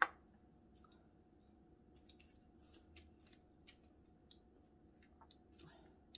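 Chopsticks clicking and tapping as dumplings are picked up from a plastic tray, in scattered small clicks, with faint chewing. A short sharp sound right at the very start is the loudest thing.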